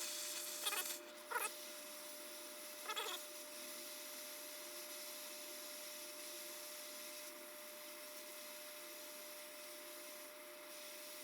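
Handheld gas torch hissing steadily as it heats a soft-soldered brass joint up to the solder's melting point. Three short, high squeaky sounds come in the first three seconds.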